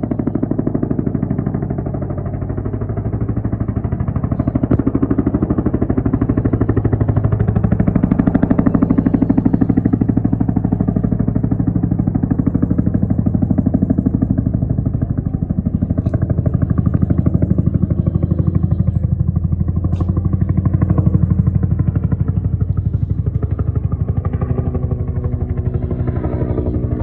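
Helicopter flying slow and loud, its rotor beating in a fast, even chop that swells and eases a little as it passes.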